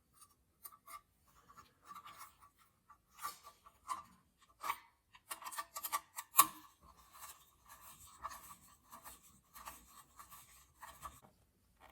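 Small metal-on-metal scrapes and clicks as a bare copper earth wire is worked into the earth terminal of a metal wall socket back box and the terminal screw is tightened down, with one sharper click about six and a half seconds in.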